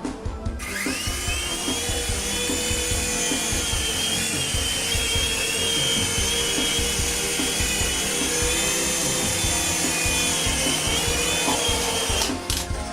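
A mini RC helicopter's electric rotor motors spin up with a quickly rising whine, then run at a high, steady pitch that wavers slightly with the throttle before cutting out near the end, over background music.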